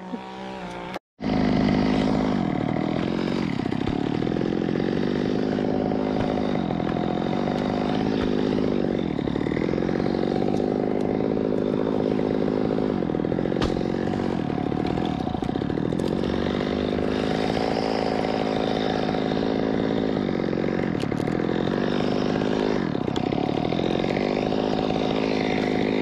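Gas chainsaw running at high revs while cutting through a palm trunk. Its pitch sags every few seconds as the chain bites into the fibrous wood, then picks back up. The sound cuts in abruptly about a second in.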